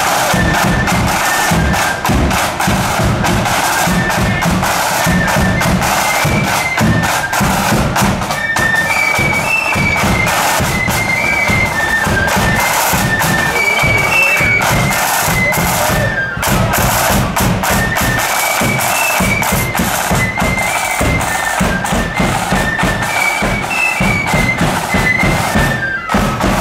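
Marching flute band playing: flutes carry a high melody over the rapid beat of side drums and bass drum.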